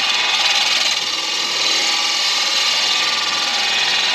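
Deer antler pen blank spinning on a midi lathe with a turning tool cutting it: a steady, even scraping hiss.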